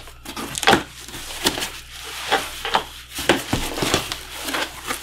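Hands rummaging through plastic bubble wrap and packing inside a cardboard shipping box: irregular rustling with many sharp crackles.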